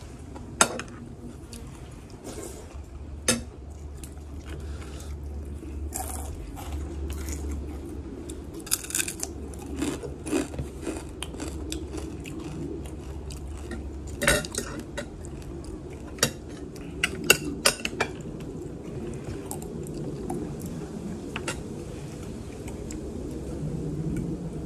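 Metal fork clinking and scraping against a plate several times, several of the clinks close together past the middle, with chewing between them. A low steady hum runs underneath.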